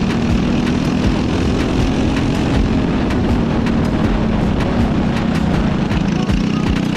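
Cadet four-stroke go-kart engine running at a steady pitch.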